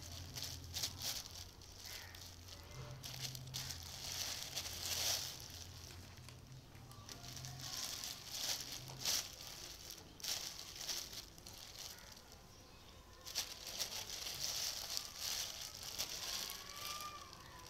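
Thin plastic carrier bag crinkling and rustling in irregular bursts as two kittens wrestle in it and paw and bite at it, with a lull of a couple of seconds past the middle.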